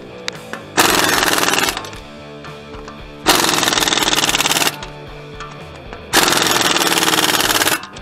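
Cordless impact driver rattling in three bursts of about a second to a second and a half each, running in locking-hub bolts, over background music.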